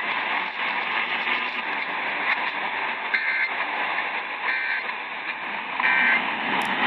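Heavy static hiss from a weak alert broadcast signal, with three short two-tone data chirps about a second and a half apart: the Emergency Alert System end-of-message bursts that close the tornado warning.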